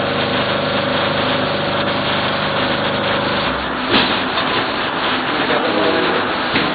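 Tablet and capsule lifting machine running: a steady motor hum with a higher whine that both stop a little after three seconds, followed by a single sharp clunk about four seconds in.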